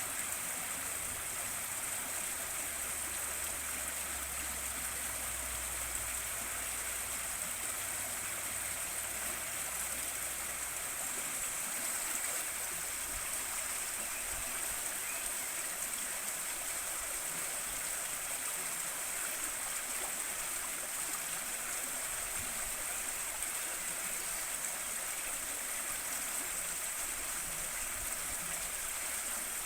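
River water flowing over stones: a steady, unbroken rush, with a faint low rumble in the first few seconds.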